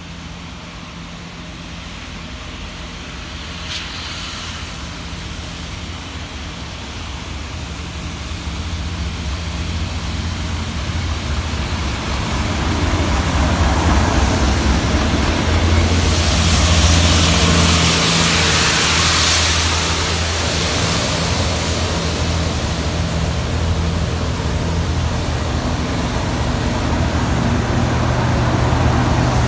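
Class 37 diesel locomotives, with English Electric V12 engines, approach and pass close by. The engine drone grows steadily louder and is loudest just past halfway, with a surge of broad rushing noise as the leading locomotive goes by. It then stays loud and steady as the second locomotive passes.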